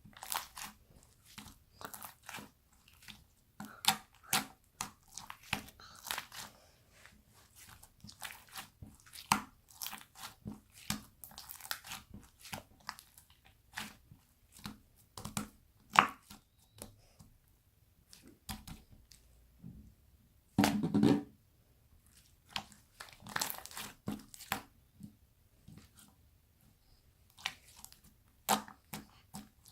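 Glitter slime being pressed and stretched by hand: irregular sticky clicks, pops and crackles, with a few short lulls. About two-thirds through there is a one-second lower-pitched sound.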